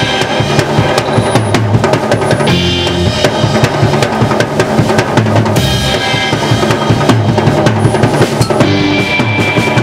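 Live surf-rock instrumental band playing loudly: a drum kit drives a busy beat on bass drum and snare under electric guitars played through amplifiers.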